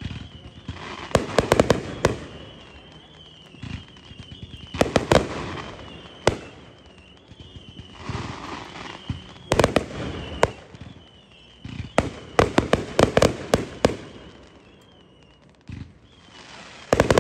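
Aerial fireworks bursting overhead in a run of volleys, each a cluster of sharp bangs and crackles, with quieter stretches between them.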